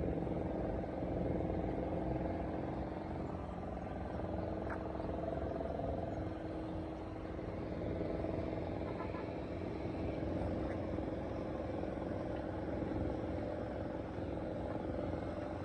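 Street traffic noise: motor vehicle engines running with a steady hum over a low rumble.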